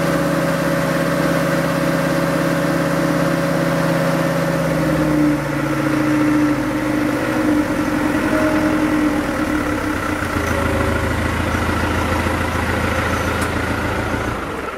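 An engine running steadily at idle, its note shifting about five seconds in and then holding steady again.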